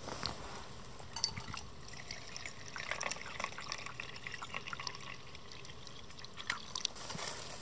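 Liquid fuel trickling from a squeeze bottle's spout into the cup of a Trangia alcohol burner, with irregular small drips and splashes.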